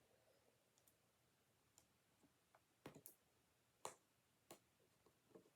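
Near silence broken by a few faint, sharp clicks and taps of hands picking at taped packaging while trying to open it, the loudest about four seconds in.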